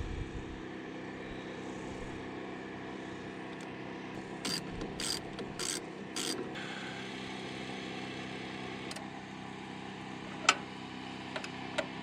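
A ratchet wrench clicking in four short bursts about halfway through, likely tightening the sawmill's battery terminals, followed by a few sharp metallic clicks near the end. A steady low hum runs underneath.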